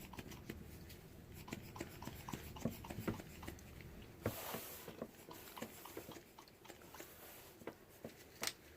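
Plastic duster bottles squeezed again and again to puff glitter onto soap: faint clicks and taps, with a short puff of air about four seconds in.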